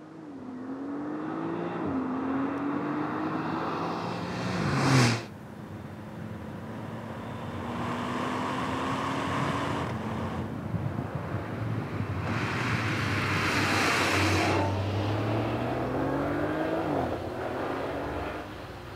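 Porsche 911 Turbo S's twin-turbo flat-six accelerating hard, its pitch climbing through the gears with quick upshifts. About five seconds in the car passes close by, the loudest moment, its pitch dropping sharply, then the engine pulls on through more gears.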